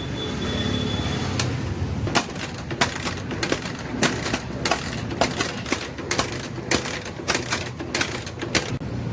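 Metal hand tools clicking and clinking against a motorcycle engine, in sharp irregular strokes a few times a second from about two seconds in, over a low steady hum.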